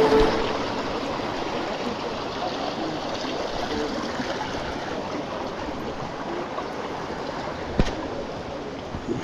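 Shallow stream flowing over rocks and pebbles, a steady rush of water. One sharp knock about three quarters of the way in.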